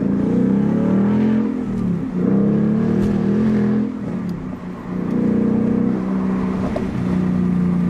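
Ford Mustang GT's 5.0 Coyote V8 with the mufflers deleted and the resonators kept, accelerating, heard from inside the cabin with a window down. The throaty exhaust note climbs in pitch, falls back about two seconds in, climbs again, then eases off around four seconds in and settles to a steady note.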